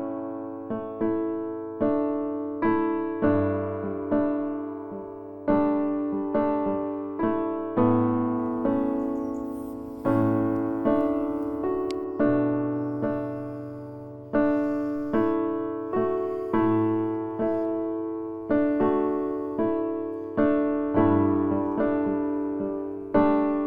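Background music: a soft piano melody with notes struck about every second or less, each ringing out and fading.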